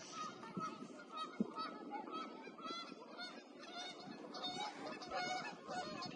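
A flock of geese honking, many short calls overlapping and repeating.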